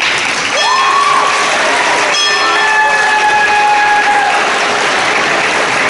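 School assembly crowd clapping and cheering, a steady wash of applause with a few high calls and whoops over it.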